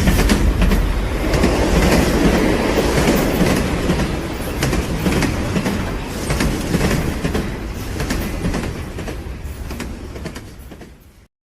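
A loud, steady rumble with a fast, irregular clatter of clicks running through it. It fades away slowly and cuts off a little before the end.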